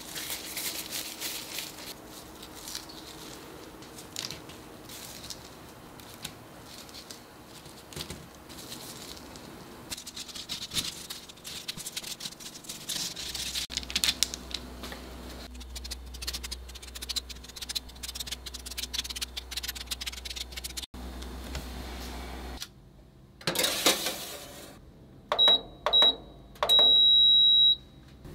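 Hands in disposable plastic gloves rustle and tap while shaping cookie dough and setting it out on a tray. Near the end, a mini oven's control panel beeps three times, two short beeps and then a longer one, as the timer is set.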